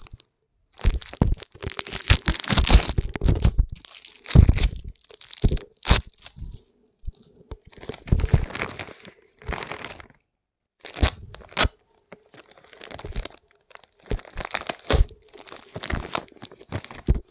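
Plastic courier mailer bag crinkling and rustling as hands pull away its blue plastic tape and work it open, in irregular bursts with short pauses between.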